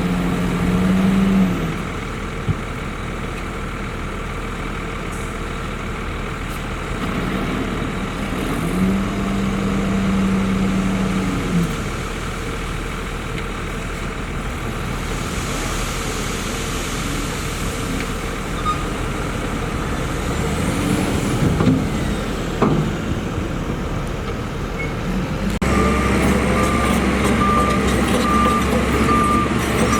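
Heavy diesel earthmoving machinery, a bulldozer and dump trucks, running steadily. Near the end a louder engine comes in, with a reversing alarm beeping at an even pace as a machine backs up.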